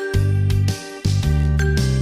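Background music with a steady beat, bass notes and a bright, tinkling melody.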